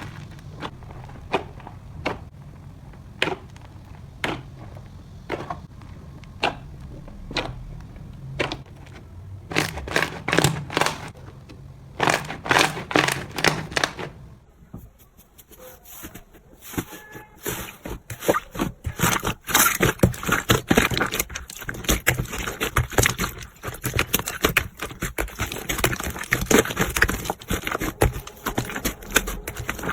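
Slime being worked close to the microphone, sticky clicks and pops. At first there is about one click a second, thickening into dense crackling about ten seconds in. After a short lull near the middle, rapid crackling and popping runs on to the end.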